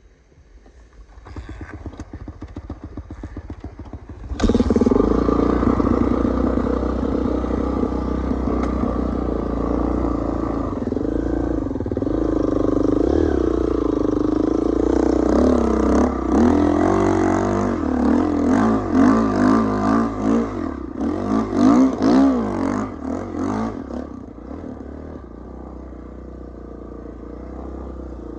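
Kawasaki dirt bike engine: it runs low for a few seconds, then revs up sharply about four seconds in and runs hard. Its pitch rises and falls with the throttle, and it settles to a lower, steadier note near the end.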